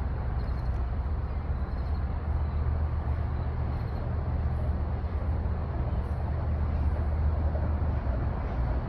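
A general cargo ship passing close by, its engine giving a steady low rumble.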